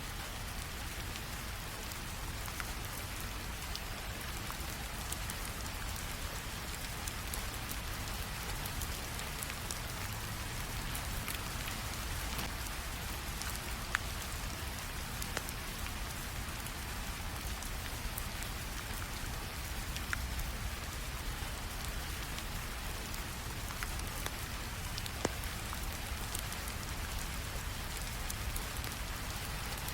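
Steady rain falling, with a few sharp pops of a crackling wood fire.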